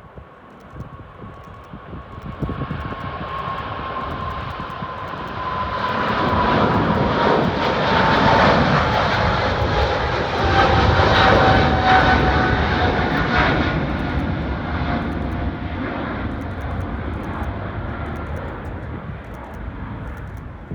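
Boeing 777-300ER's twin GE90 turbofans at takeoff power, passing by: the roar builds, is loudest about six to thirteen seconds in, then slowly fades. A whining fan tone falls steadily in pitch as the jet goes past.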